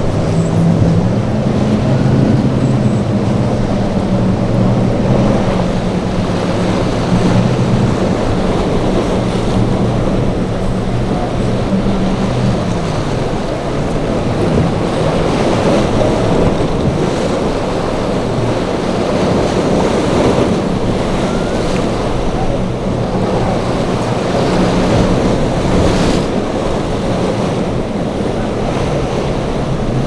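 Several outboard motors droning steadily as a boat runs through rough surf, with the hiss and crash of breaking water and wind buffeting the microphone. The engine pitch rises slightly about a second in and drops near the middle.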